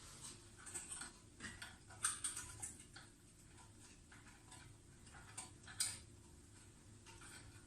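Faint, scattered light clicks and taps of small wires and parts being handled, as a jumper wire is fitted across the electric panel heater's blown thermal fuse.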